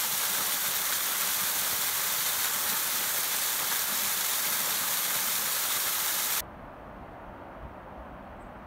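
Rushing water of a small creek waterfall close by, a loud steady hiss. It cuts off abruptly about six seconds in to a much quieter outdoor hush with a faint low rumble.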